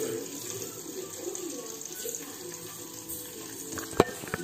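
Food frying in hot oil, a steady sizzle. About four seconds in there is a sharp knock as the camera is handled.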